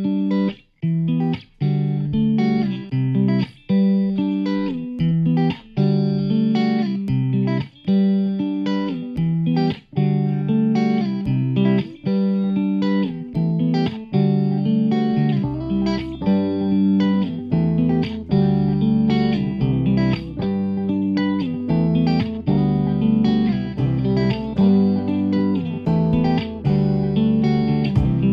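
Instrumental background music with a steady beat; deeper low notes join about halfway through.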